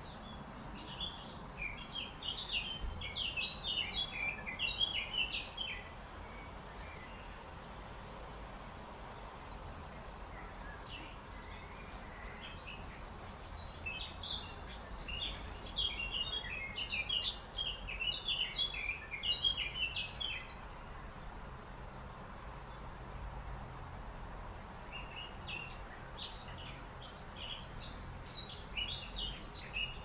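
Small songbirds singing in quick, high chirping phrases, in three stretches of several seconds each, over faint low background noise.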